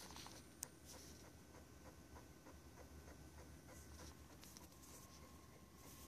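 Tandy Portable Disk Drive 2 formatting a floppy disk: faint, slow, regular ticking from the drive, about four ticks a second, with one sharp click under a second in.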